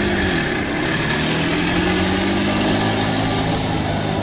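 Vehicle engine running. Its pitch rises and falls in the first second, then holds steady.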